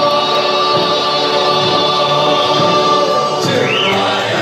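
Choral music: voices singing sustained chords.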